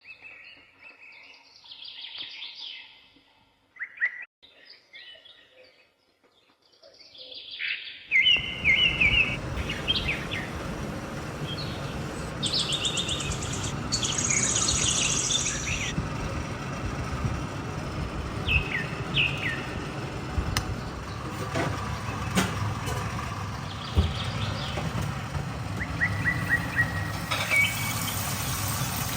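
Small birds chirping in short repeated calls. About eight seconds in, a steady low rumbling background noise comes in and runs on under the chirps.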